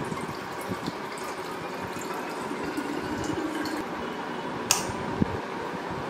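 Water running from the tap of a terracotta water pot into a water bottle, filling it. A sharp click near the end, then a softer knock.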